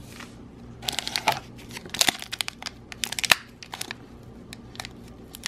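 Foil wrapper of a Pokémon trading-card booster pack being crinkled and torn open by hand: an irregular run of sharp crackles and rips, starting about a second in.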